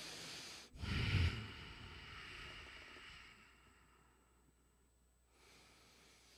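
A man breathing close to a microphone. A breath drawn in runs into a loud, sighing breath out about a second in, which fades over the next two seconds, and a quieter breath follows near the end.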